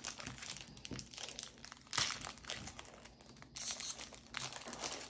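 Foil Pokémon card booster pack wrapper being torn open by hand, crinkling and tearing in short, irregular crackles, loudest about two seconds in.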